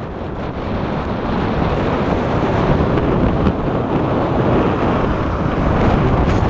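Strong cold sea wind buffeting the microphone in a low rumble, over the wash of rough surf on the Sea of Azov shore; it swells over the first couple of seconds, then holds steady.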